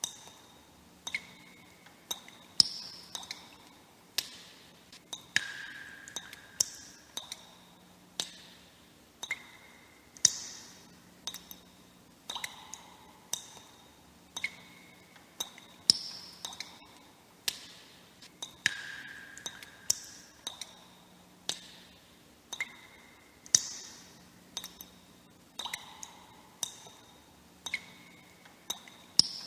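Water droplets dripping one at a time, about one a second at uneven spacing. Each lands with a sharp plink and a brief ringing tone whose pitch varies from drop to drop.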